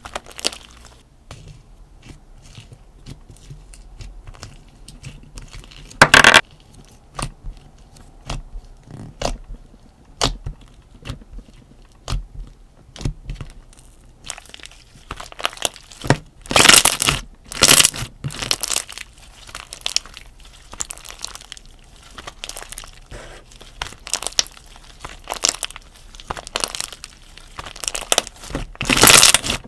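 Slime being squeezed, poked and stretched by hand: scattered sticky clicks and crackling pops, with a loud burst about six seconds in and runs of louder crunchy squishes past the middle and near the end.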